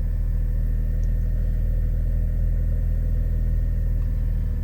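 BMW 325i (E90)'s straight-six engine idling, a steady low hum.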